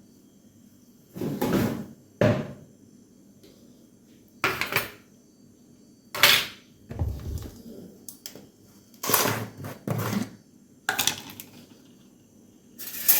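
Kitchen dishes and utensils being handled: a string of irregular knocks, clinks and clatters, some eight in all.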